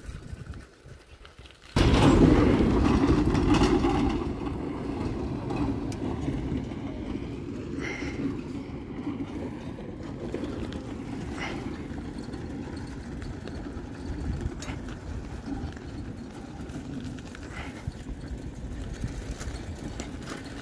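A large vehicle on a gravel road, engine and tyres rumbling. It starts suddenly and loudly about two seconds in, eases off over the next couple of seconds, then carries on as a steady rumble as the vehicle moves away.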